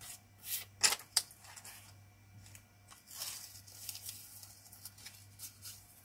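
Masking tape being peeled off the edges of a watercolour painting's paper: a few short sharp rips in the first second or so, then a longer tearing peel a little past the middle.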